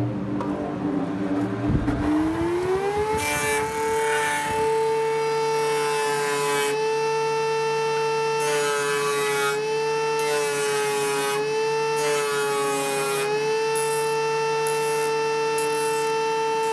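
Table saw spinning up to speed over the first few seconds into a steady whine, then trimming the edges of a white-laminated wooden switch-board back box. A rasping hiss comes and goes and the pitch sags slightly as each edge is fed against the blade.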